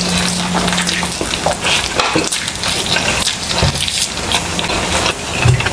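Close-miked eating of grilled chicken: wet chewing, lip-smacking and crackly mouth clicks in a dense, irregular run.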